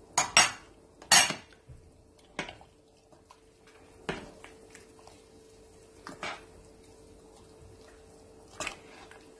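Metal spoon clinking against a stainless steel pot while the sauce is stirred: a few sharp clinks in the first second and a half, then single clinks every couple of seconds, over a faint steady hum.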